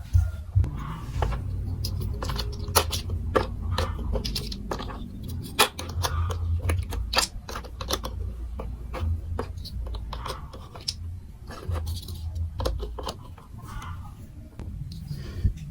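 Hard plastic clicks and clacks from a marble run building-block set: many sharp taps at irregular intervals over a low steady hum.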